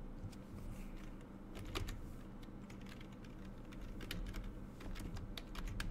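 Computer keyboard keys clicking in an irregular run of keystrokes as a word is typed, the taps coming thicker in the second half.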